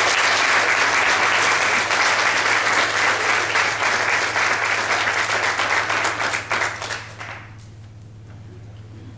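Congregation applauding: dense clapping that thins out and stops about seven seconds in.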